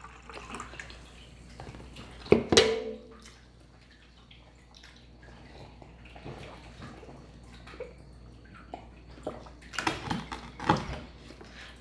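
A person drinking close to the microphone: sips and gulps of liquid with wet mouth and swallowing sounds. A loud short throaty gulp comes about two and a half seconds in, and a cluster of louder gulps comes near the end.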